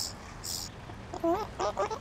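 Two short, soft scraping rustles near the start, then a quick run of four or five high, voice-like cries, each wavering in pitch, through the second half.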